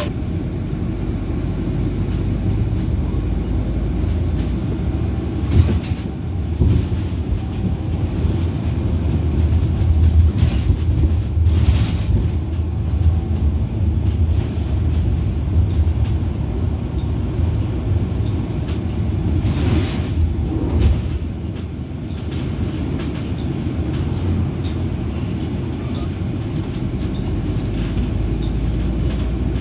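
Cabin noise inside a 2015 Nova Bus articulated city bus pulling away from a stop and driving on: a steady low engine and road rumble that swells as it gets under way, with a few brief clatters from the bus body.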